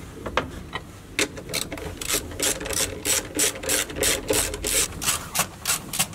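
Hand screwdriver turning screws out of a plastic car seat base: a run of short scraping, ratchet-like strokes, about three a second, beginning about a second in.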